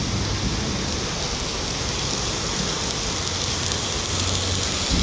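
Stick (SMAW) welding arc burning on a carbon steel pipe joint, a steady, even crackle, with a low steady hum underneath.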